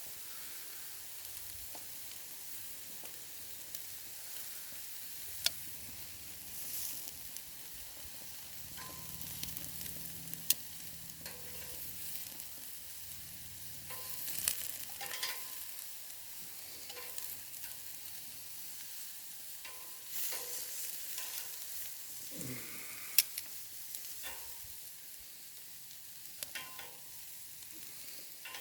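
Food sizzling on a grill over campfire coals, a steady hiss with scattered sharp clicks and pops.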